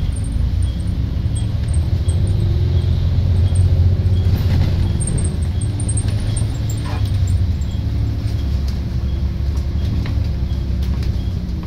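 Double-decker bus engine and drivetrain heard from inside the bus as it drives through a roundabout, the engine note rising and stepping as it accelerates and changes gear. A light ticking about twice a second runs along underneath.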